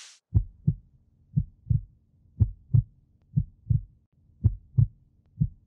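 Heartbeat sound effect: pairs of low thumps, lub-dub, repeating about once a second.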